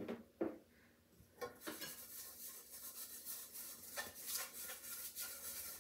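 Metal cake pans being handled and greased: a few light knocks of a pan, and soft rubbing of fingers spreading shortening over the inside of a pan.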